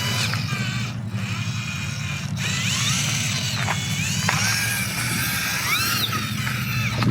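RC rock crawler's electric motor and geared drivetrain whining as the throttle is worked, the pitch rising and falling again and again over a steady low hum.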